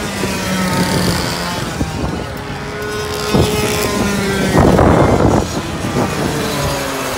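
Two-stroke 100cc racing kart engines running at high revs as several karts go past, their pitches gliding up and down and overlapping. A brief loud rush of noise comes about two thirds of the way through.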